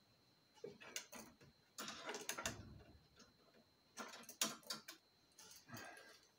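Paper towel rustling and rubbing against a compressor tube as it is wiped down, in four short bursts with light clicks of the part being handled.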